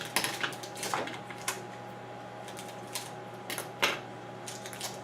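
Adhesive tape being handled and stuck down to tape a top-loading washer's lid shut: scattered light clicks and rustles, with a faint steady whine underneath.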